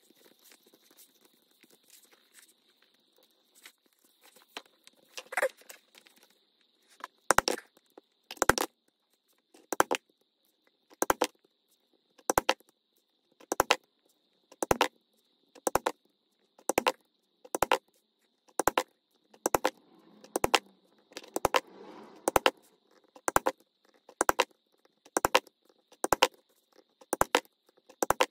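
A mallet striking leatherworking tools: a long run of sharp, evenly paced blows, about one a second, starting about seven seconds in after some light handling and rustling.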